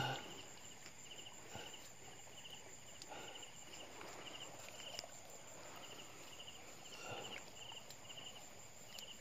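A cricket chirping steadily, about two short trilled chirps a second, with a few faint rustles of wet grass.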